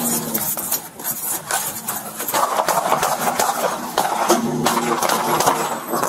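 Car engine running and revving as the car pulls away, over rapid knocking and rattling of a running person's gear and footsteps.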